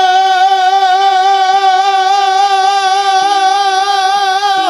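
Devotional folk song: a singer holds one long 'o' note with a slight waver, over a steady lower accompanying note and a few faint drum taps.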